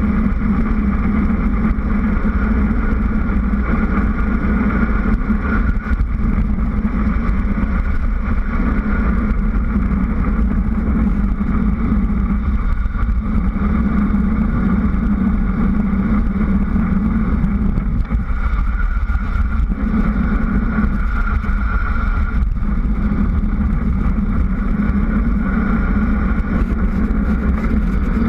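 Steady rushing wind noise on a bike-mounted GoPro and the hum of the tyres on asphalt as a mountain bike runs at speed down a paved mountain road.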